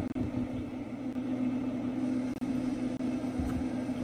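Traeger pellet grill running with a steady hum, with a few low thumps of footsteps on the wooden deck about half a second in and again near the end.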